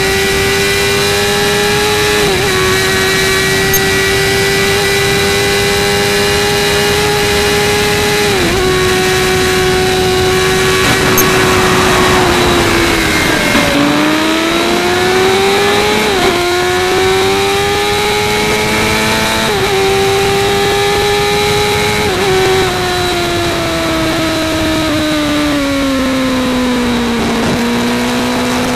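Suzuki GSX-R 750's inline-four engine at high revs, heard from the rider's seat over wind noise. The pitch holds steady with two brief dips for quick gear changes, falls as the bike slows about halfway through, then climbs through three upshifts, each a rising pitch that drops suddenly, and winds down steadily near the end.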